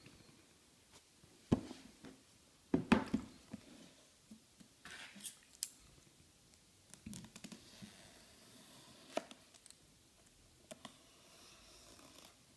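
An iPad Air's cardboard retail box handled on a wooden table: a knock about a second and a half in, a louder cluster of knocks about three seconds in, then rustling and scraping and a few small clicks.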